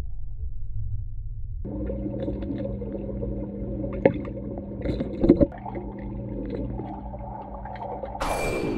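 Underwater sound in a swimming pool: a low water rumble, joined about two seconds in by a steady hum. A couple of sharp clicks come in the middle, and a falling sweep comes near the end.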